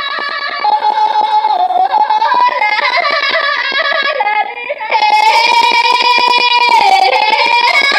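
Background music: a high, wavering melody with held notes over a quick, steady pulse, with a brief drop about four and a half seconds in.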